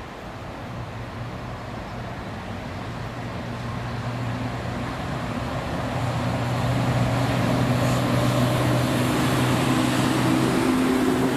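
PKP Intercity EP09 electric locomotive hauling a passenger train, approaching and passing close by, growing steadily louder. A steady hum with several held tones runs through it, with higher tones joining in the second half as it draws alongside.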